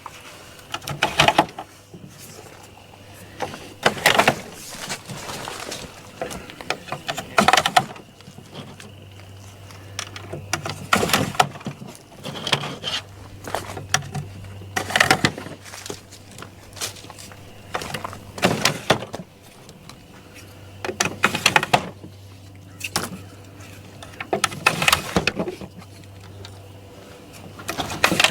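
Plastic webbings being slid into a Nudura one-sided ICF foam panel and snapping into place: sharp clicks and scrapes every few seconds, over a steady low hum.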